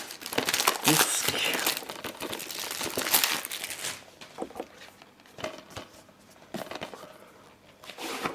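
Plastic shrink wrap being torn and crumpled off a Blu-ray case, a dense crinkling for about four seconds, followed by softer scattered clicks as the case is handled.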